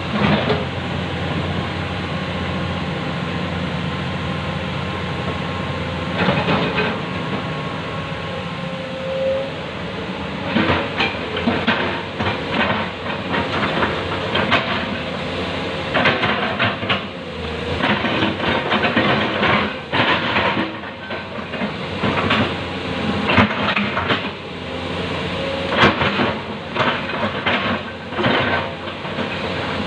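Komatsu PC200 hydraulic excavator's diesel engine running steadily under load. From about ten seconds in, repeated metal clanks and knocks join it as the bucket and tracks work through the mud.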